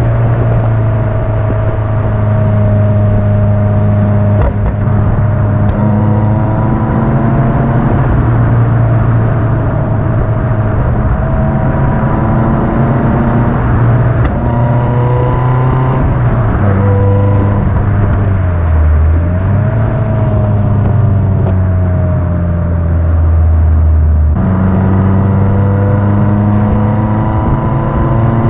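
Lotus Elise S3 1.6's four-cylinder engine and exhaust pulling along a winding road, the note climbing and falling with the throttle. It breaks in pitch several times, as on gear changes, with a sudden jump about three-quarters of the way through before climbing again.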